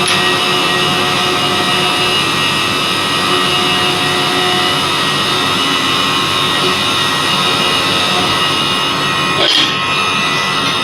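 CNC vertical machining centre milling: a steady cutting noise with several high, even tones from the spindle. There is a short sharp knock about nine and a half seconds in.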